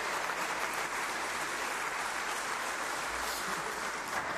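Steady applause from a large seated crowd of parliamentarians clapping together.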